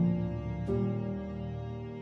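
Slow, soft instrumental background music with sustained notes; a new note sounds about two-thirds of a second in and slowly fades.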